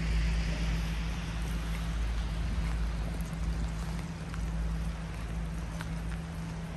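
Steady rain, with scattered drops ticking close by and a steady low hum and rumble underneath.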